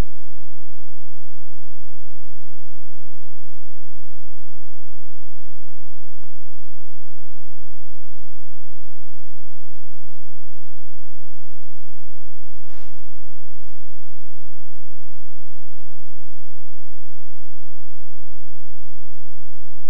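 Loud, steady electrical mains hum and buzz, many steady tones stacked together, with a short click about thirteen seconds in. The hum stands in for the studio sound, the sign of a fault in the broadcast audio feed such as a ground loop.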